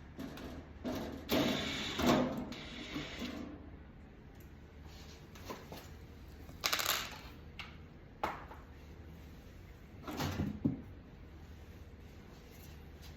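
Intermittent handling noises: several clusters of scrapes, knocks and clicks, the sharpest about seven seconds in, over a steady low hum.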